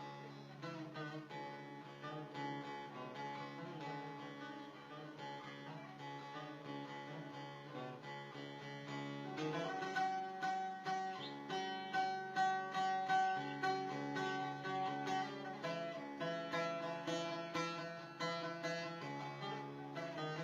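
Instrumental music led by a plucked string instrument playing rapid picked notes over sustained lower tones, growing louder about ten seconds in.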